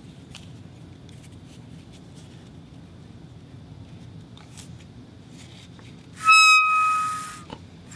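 Low background hiss with a few faint clicks, then about six seconds in a rubber whistle sounds one steady, high note for about a second before fading.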